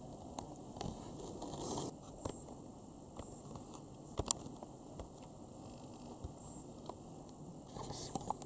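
Faint background hiss with scattered small clicks and ticks, one sharper click about four seconds in.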